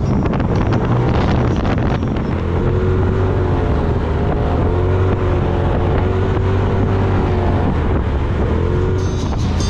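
UTV engine running while driving, with a drivetrain whine that rises and falls with speed and some knocks and rattles over the first two seconds. Wind buffets the microphone.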